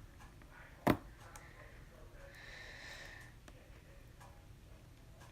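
Clear homemade slime being handled: one sharp pop about a second in, then only faint soft sounds.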